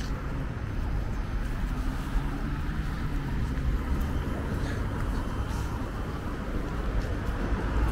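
City street traffic: cars and other motor vehicles running past on a busy avenue, heard as a steady low rumble of engines and tyres.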